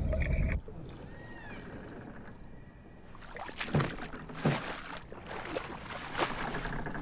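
Sounds of a small wooden boat on the water: a few short knocks and splashes about a second apart, after a louder passage of music breaks off under a second in.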